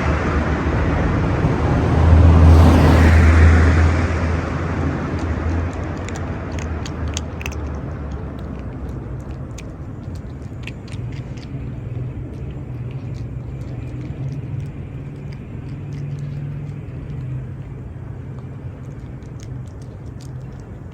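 Street traffic: a vehicle passes close by about two seconds in with a deep rumble that fades away. A steady low engine hum follows, with scattered faint ticks.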